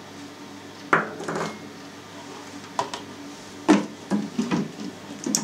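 Sharp clinks and knocks of kitchenware being handled: a small glass dish set down on the table and a clear lid fitted onto the stainless-steel bowl of a bowl cutter. There is one knock about a second in, a cluster of them in the second half, the loudest among them, and one more at the very end.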